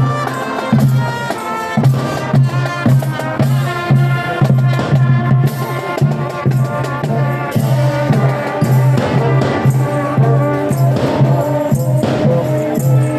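Marching band music, a pitched melody over a steady pulsing bass beat.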